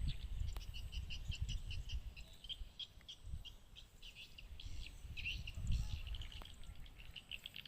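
A bird chirping rapidly and repeatedly, short high-pitched chirps several a second, over a low rumbling noise.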